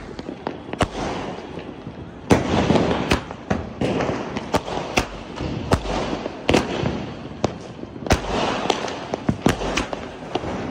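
Firecrackers and fireworks going off: many sharp bangs at irregular intervals, some close together, over a steady hissing background.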